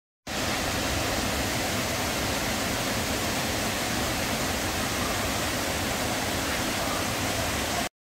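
Steady rushing roar of Tat Ton Waterfall, several cascades pouring over sandstone ledges into a rocky pool. It starts abruptly just after the beginning and cuts off suddenly just before the end.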